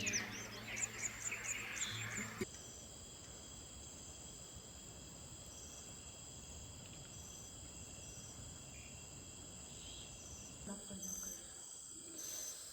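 Crickets and other night insects calling in a steady high-pitched chorus, with short pulsed calls repeating over it. It opens with a couple of seconds of background music and bird chirps, which cut off suddenly.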